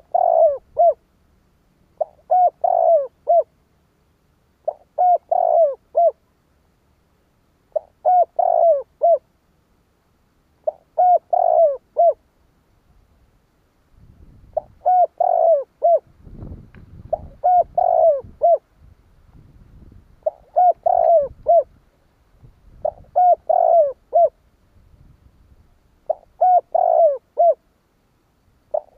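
Spotted dove cooing, a short phrase of three or four coos repeated about every three seconds, ten phrases in all. It is a fast, insistent call of the kind played to goad a newly caught dove into calling back.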